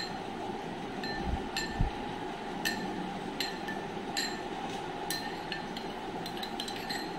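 A metal spoon clinking against a small glass bowl while stirring saffron into a little flavoured water: about a dozen light, irregular taps, each ringing briefly. Two dull knocks come about a second and a half in.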